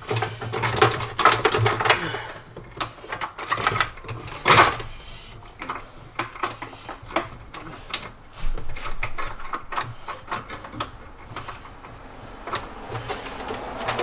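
Irregular clicks, scrapes and rustles of a wiring harness being handled and pulled against plastic interior trim, with one louder scrape about four and a half seconds in.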